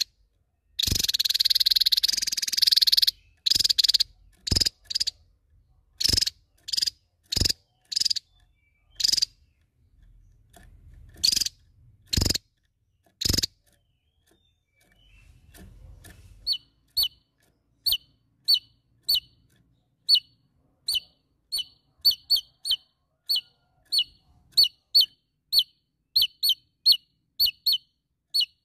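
Javan tesia calling: a loud burst of rapid song lasting about two seconds, then a string of sharp single call notes about one a second, then a long run of short, falling chip notes that come faster near the end.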